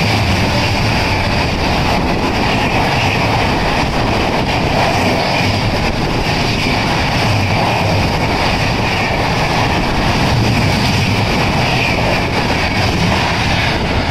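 An express passenger train's coaches passing at speed close by, a steady loud rush of wheels on rail that lasts until the last coach goes by.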